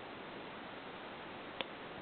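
Quiet room tone: a steady low hiss with a single short click near the end.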